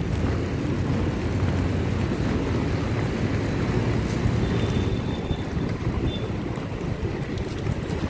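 Wind buffeting the microphone over the steady rumble of Oxelo MF500 inline skate wheels rolling on asphalt.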